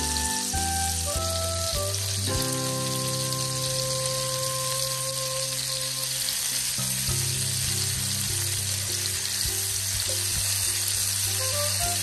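Whole small red snapper (sankara) fish shallow-frying in a thin layer of oil on a flat tawa, with a steady sizzle. Soft background music plays under it.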